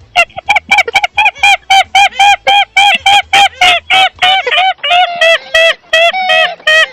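A fast, unbroken run of loud, short animal-like calls, about four to five a second, each rising and falling briefly in pitch.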